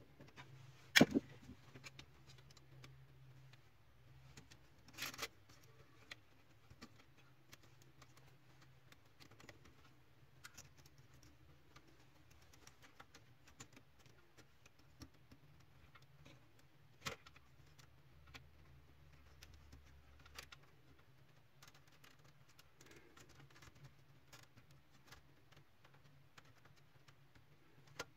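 Sharp clicks and knocks of plastic printer parts being handled and fitted, the loudest about a second in, with others around five and seventeen seconds in and faint scattered ticks between, over a low steady hum.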